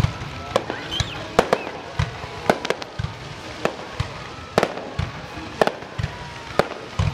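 Aerial fireworks bursting: a rapid, irregular series of sharp bangs, several a second at times, with some echoing, over background music.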